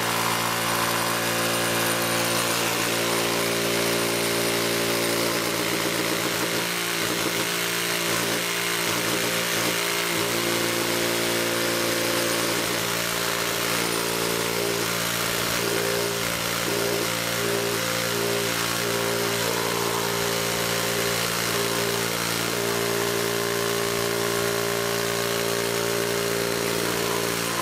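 Makita 40V XGT JV001G barrel-grip cordless jigsaw sawing through a thick timber block. It runs steadily, and from about six seconds in its pitch wavers and dips for a while as the blade loads up in the wood.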